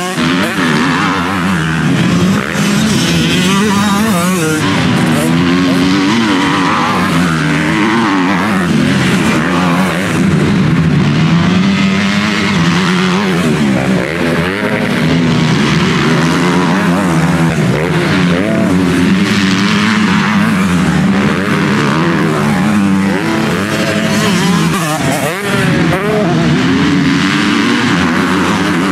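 Several motocross bikes' engines revving hard through a corner, overlapping and rising and falling in pitch as riders accelerate and shift, with no break.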